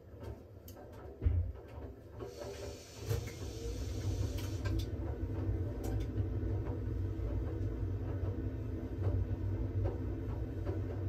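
Siemens WG56 iQ700 washing machine drum starting to turn during its smartFinish steam phase, the motor running with clothes tumbling in a steady low rumble and light clicks. There is a sharp thump about a second in and a hiss for a couple of seconds after that.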